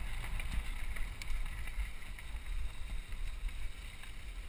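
Wind buffeting the microphone of a helmet-mounted camera on a moving mountain bike, a fluctuating low rumble, with the hiss and crunch of tyres rolling over a packed gravel track.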